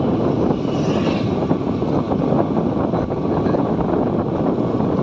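Motorcycle engine running steadily while riding at cruising speed, with some wind noise on the microphone.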